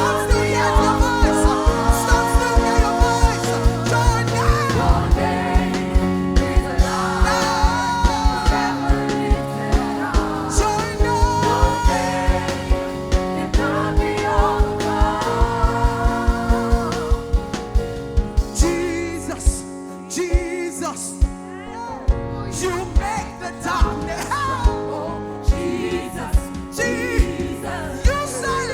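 Gospel worship music: singers over a band with a steady drum beat. The drums and bass drop out for a couple of seconds about two-thirds of the way through, then come back in.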